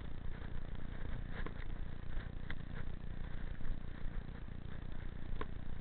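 Mountain bike rolling along a grassy dirt track: a steady rumble of tyres and wind on the microphone, with a few sharp clicks and rattles from the bike over bumps.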